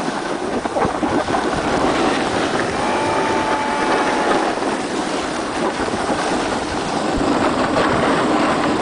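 Steady rush of wind buffeting the microphone, mixed with the hiss and scrape of sliding fast over packed snow on a ski run.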